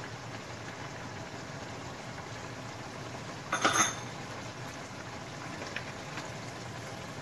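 Chicken afritada simmering in tomato sauce in a wok: a steady bubbling hiss. A brief clatter a little over three seconds in, a utensil knocking against the pan.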